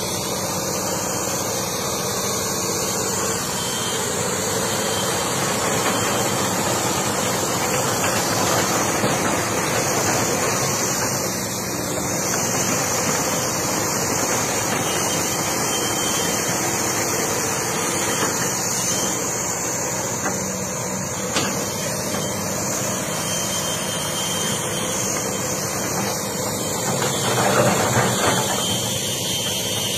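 Komatsu hydraulic crawler excavator's diesel engine running steadily as the machine works its boom and bucket, swelling louder near the end.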